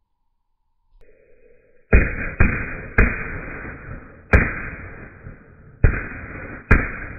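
PyroFactory Mega Böller firecrackers going off one after another: six loud bangs at uneven gaps, starting about two seconds in, each dying away over about a second. A faint hiss comes just before the first bang.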